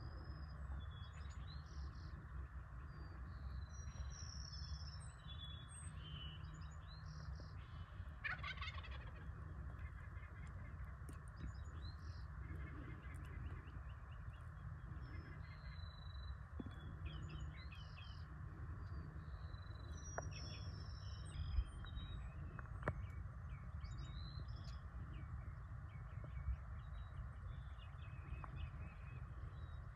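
A wild turkey gobbles once, a short rapid rattling call about eight seconds in, among scattered chirps of songbirds over a faint steady low rumble.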